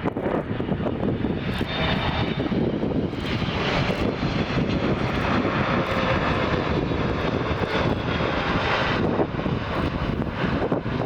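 Boeing 777 jet engines running loud as the airliner arrives. The roar swells for several seconds, then drops away about nine seconds in.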